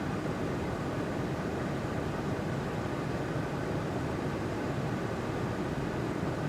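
Air conditioner running: a steady, even hum and whoosh of air, strongest in the low range, with no change in level.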